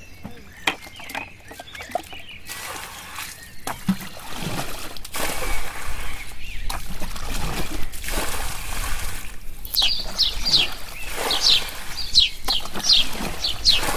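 White plastic bucket scooping muddy water from a shallow ditch and flinging it out, over and over: repeated sloshing and splashing as the pool is bailed dry. Short, quick chirps join near the end.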